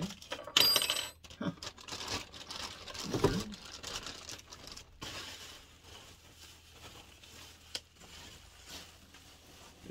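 Plastic bag and bubble wrap crinkling and rustling as they are handled and pulled away by hand, loudest in a burst about half a second in.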